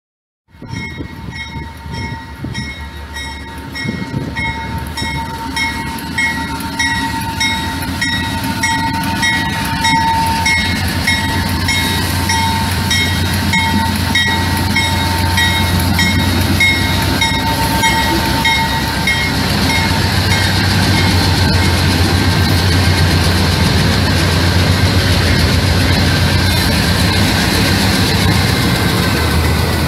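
Canadian National diesel locomotives rolling slowly past, their engines rumbling louder as they draw level. An evenly pulsing ring of about two strokes a second sounds over them and stops about two-thirds of the way through.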